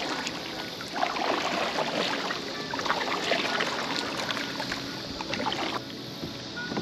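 Double-bladed kayak paddle stroking through river water, splashing and dripping with each stroke, a stroke about every second.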